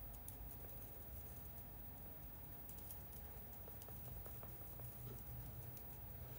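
Faint, irregular soft patting of a barely damp makeup sponge dabbing foundation onto the skin, over a low steady room hum.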